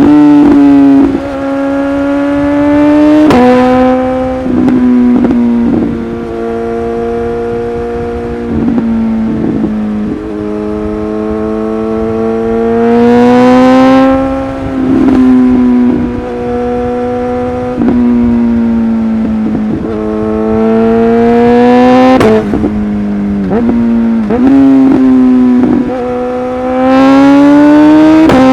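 Suzuki GSX-S1000's inline-four engine through a LeoVince aftermarket exhaust, under way at high revs. The engine note climbs slowly and drops sharply about ten times as it changes gear and the throttle is lifted, with short sharp exhaust pops at several of the changes.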